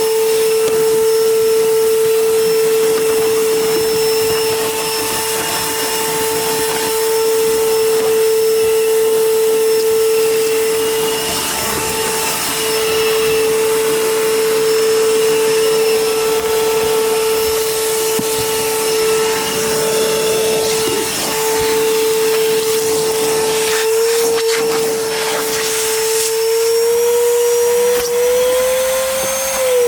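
Vacuum cleaner motor running steadily with a high whine while vacuuming car carpet, with a few clicks in the later part and the pitch rising slightly near the end.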